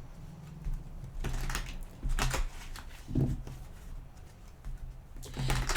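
A few soft rustles and taps over a low steady hum.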